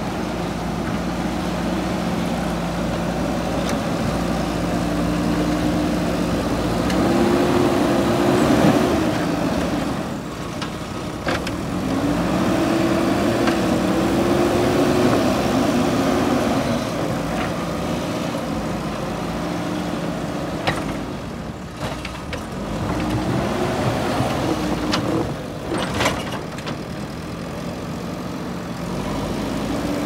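JCB backhoe loader's diesel engine running, revving up three times as the front bucket pushes and lifts soil, with a few sharp knocks.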